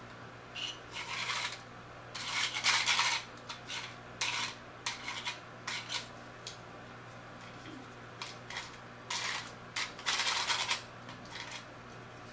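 Hard plastic Beyblade string launcher parts being handled, giving irregular clicks and clatters, with two longer spells of crinkling plastic packaging about two seconds in and again about ten seconds in.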